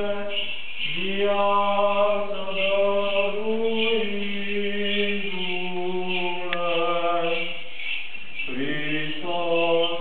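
Orthodox baptism-service chant: a single voice intoning long held notes that step from one pitch to the next, with a new phrase beginning lower near the end.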